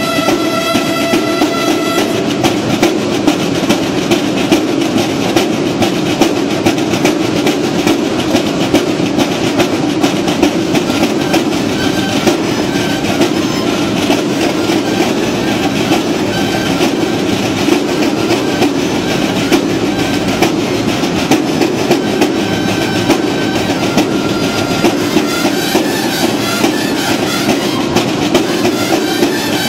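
Marching percussion and brass playing a routine: continuous dense drumming with a held brass note in the first two seconds and short brass notes now and then.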